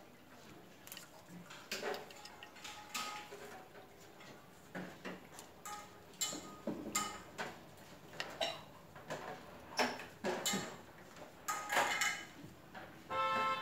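Hammer tapping on a mango tree trunk to fasten an orchid: a dozen or so sharp, irregular knocks, some with a short metallic ring.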